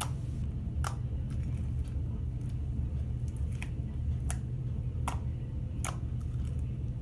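Fingertips poking into homemade pink slime made of glue, detergent and contact solution, giving about five short, sharp wet squelching pops over a steady low hum.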